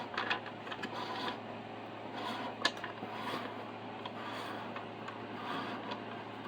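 Faint handling noise on a workbench: light rubbing and scraping with scattered small clicks, one sharper click about two and a half seconds in, over a steady low hum.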